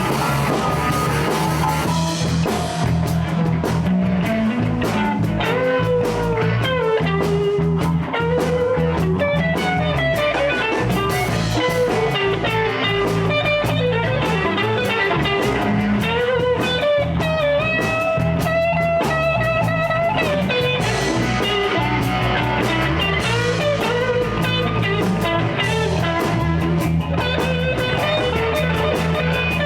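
A blues band playing live: electric guitar, bass guitar and drum kit, with a guitar playing a lead line full of bent notes over a steady groove.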